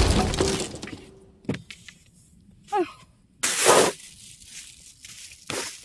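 Large cardboard cutout being bent and handled: a loud crackling rush fades over the first second, then a knock, a short squeak and a brief loud rustle midway, with quieter scuffs near the end.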